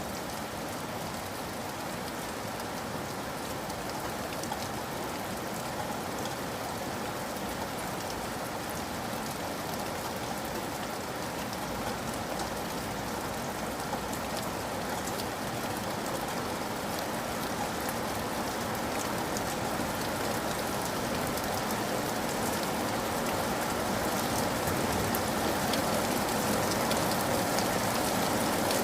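Steady rain falling, with the patter of many individual drops; it grows slowly louder.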